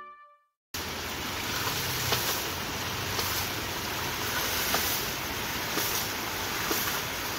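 Water rushing and splashing out of a hydraulic ram pump's Teflon waste valve, with faint knocks from the valve about a second apart. Background music fades out at the very start, followed by a brief silence before the water sound begins.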